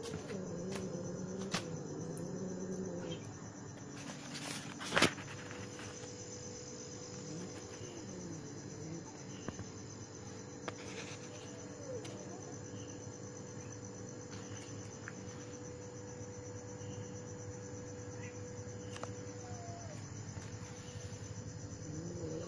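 Crickets and other night insects chirping steadily in a high, even trill. A few low, wavering drawn-out calls come over the first seconds and again about eight seconds in, and a single sharp click sounds about five seconds in.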